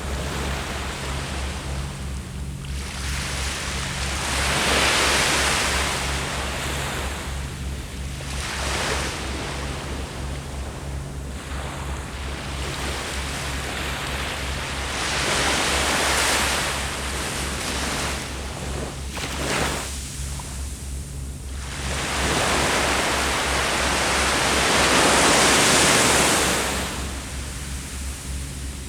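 Sea waves breaking and washing up the shore in slow surges of surf hiss, the longest and loudest near the end. A low, rapidly pulsing hum runs underneath.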